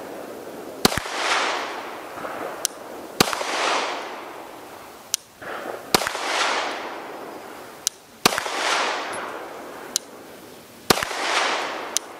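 Five pistol shots fired at a slow, deliberate pace, one every two to three seconds, each followed by a long trailing echo.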